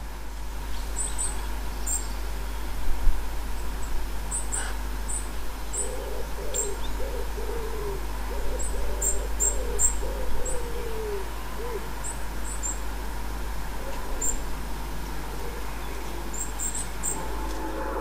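A fledgling robin's thin, very high begging peeps, repeated in short clusters throughout. In the middle a pigeon coos, a run of low, rising-and-falling notes, and a low thump comes about three seconds in.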